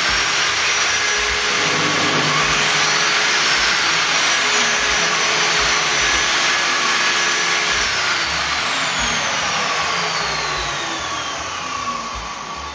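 Two Modern M-608 jobsite table saw motors heard together with a high whine. One kicks on abruptly at full speed, while the one fitted with a soft-start module spins up gradually over a couple of seconds. About eight seconds in, the saw without soft start switches off and winds down with a steadily falling whine while the other keeps running.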